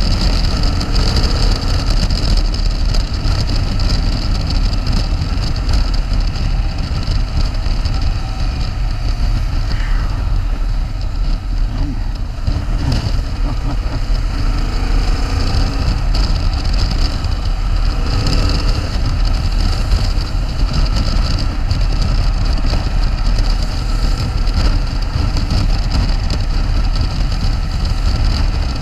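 Motorcycle engine running as the bike rides between lanes of slow freeway traffic, its pitch rising and falling a little with the throttle, under a steady rumble of wind on the microphone.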